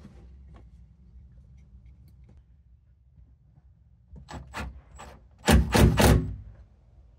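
Faint handling noises, then about four seconds in a cordless impact driver runs in a few short trigger bursts, the loudest near the end, tightening the bolt that holds a 12-volt outlet bracket to the truck bed.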